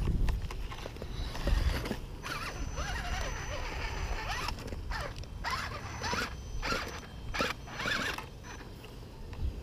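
Radio-controlled rock crawler's Tekin Pro4HD brushless motor and geared drivetrain whining in short bursts, the pitch rising and falling, as the truck crawls over logs.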